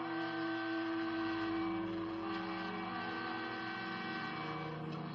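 High-speed electric train running at speed: a steady whine of several held tones over a rushing noise, with one lower tone sliding slowly.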